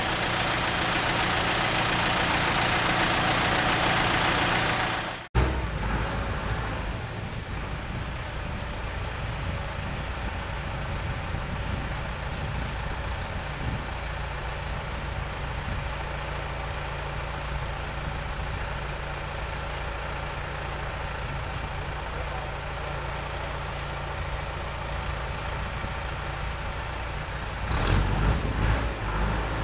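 Highway HHF truck-mounted pressure digger running: loud, dense machinery noise for the first five seconds, cut off suddenly, then a steady engine drone that surges louder near the end.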